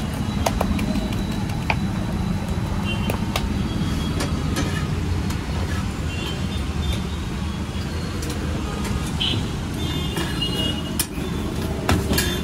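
Steady low rumbling background noise, with a few sharp clicks of a metal spatula against an iron pan.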